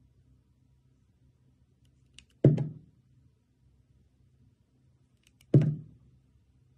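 Snap-off utility knife blade scraping clear soft soap twice, about three seconds apart; each stroke is a short sharp thunk that dies away quickly.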